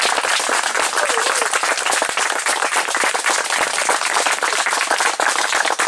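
Crowd applauding: many hands clapping together in a dense, steady patter.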